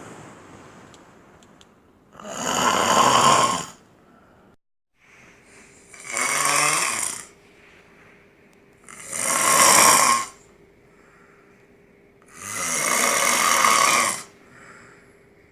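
A man snoring heavily in deep sleep: four long, loud snores, about one every three and a half seconds, with quiet breaths in between.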